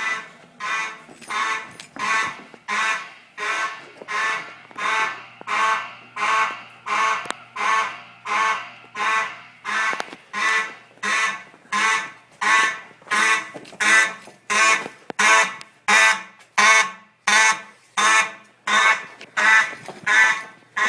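School fire alarm horns sounding in a steady pulse of about two blasts a second, each a harsh, buzzy, duck-like tone.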